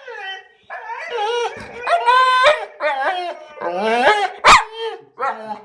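American bulldog vocalizing in a series of drawn-out, whiny, talking-like calls that bend up and down in pitch, with a sharp click about four and a half seconds in.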